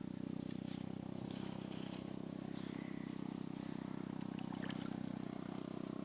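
An engine running steadily at a constant low hum.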